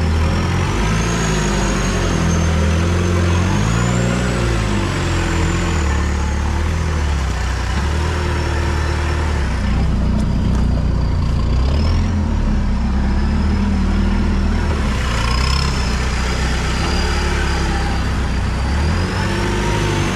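Off-road 4x4's engine running under load as it climbs over rough dirt, its pitch rising and falling with the throttle, heard from the cab. A thin high whine rises and falls alongside it.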